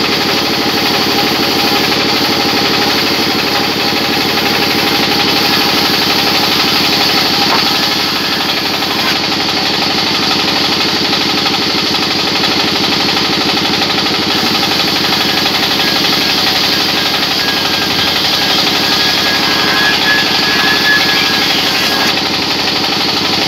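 Engine-driven circular saw bench running steadily, its motor and belt drive making a constant rhythmic drone as planks are fed to the blade. A thin whine appears in the last few seconds.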